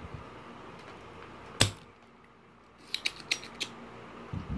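Spring-loaded desoldering pump (solder sucker) firing once with a sharp snap about a second and a half in, sucking molten solder off a speaker terminal lug. A few lighter clicks follow about a second later.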